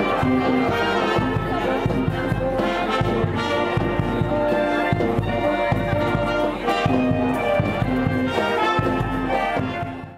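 Brass band playing a tune, with trumpets and a tuba; the music cuts off suddenly at the very end.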